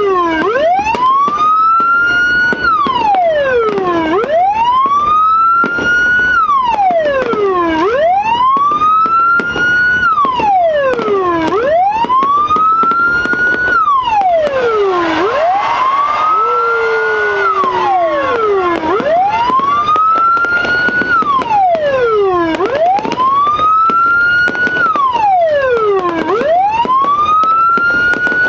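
Aftermarket police-escort (patwal) electronic siren module sounding loudly through a 10–15 W TOA horn speaker in its wail tone. Each cycle climbs quickly in pitch and then falls more slowly, repeating about every four seconds. About halfway through, a noisier sound and a lower falling tone briefly mix in with it.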